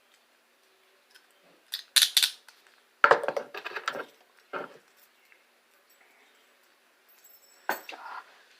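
Steel handcuffs clicking and clinking as they are handled and squeezed, in several short bursts: about two seconds in, a longer run of clicks a second later, one near the middle, and another near the end.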